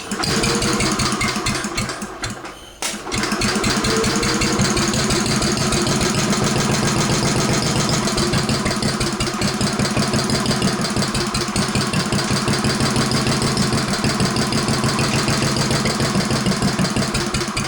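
Cast iron Briggs and Stratton single-cylinder engine running on a freshly rebuilt Flo-Jet carburetor. It falters briefly about two and a half seconds in, then picks up and runs steadily at an even, fast firing beat while being tuned.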